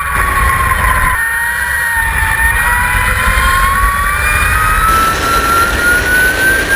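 Electric race motorcycle's motor and drivetrain whine, a high jet-like tone that climbs slowly in pitch as the bike accelerates, over a steady low rumble.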